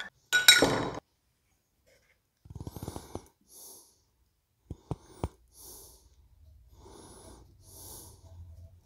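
A small metal can of Caswell epoxy tank sealer (part B) pried open with a tool, with a short sharp metallic pop and clinks near the start. A gritty scraping rattle comes about two and a half seconds in and two sharp clicks around five seconds, then a person's breathing close to the microphone, about one breath a second.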